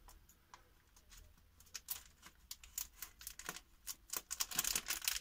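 A plastic packet of grated cheese being handled and worked at to get it open: a run of crinkles and sharp clicks, sparse at first and getting busier from about halfway.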